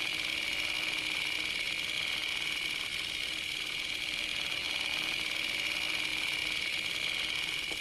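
A steady high-pitched mechanical whirr, unchanging throughout.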